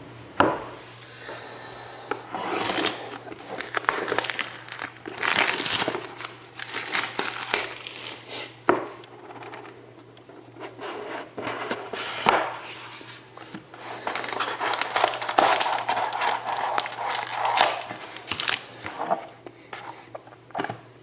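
Plastic wrapping crinkling and tearing in irregular bursts as a sealed trading-card box and its wrapper are opened by hand.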